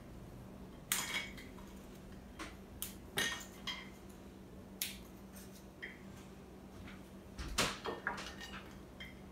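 Scattered light clinks and taps of a table knife and dishes being handled on a table, a dozen or so short knocks at uneven intervals.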